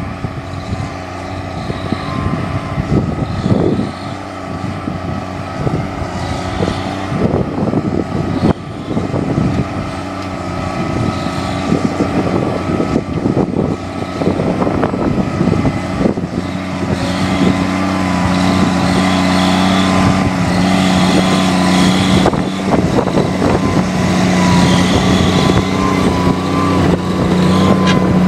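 A 285-horsepower Case IH tractor engine running under load as it pulls a Simba Solo 300 disc harrow through ploughed soil. It has a steady deep note and a high whine above it, and it grows louder from about halfway through as the tractor and harrow pass close by.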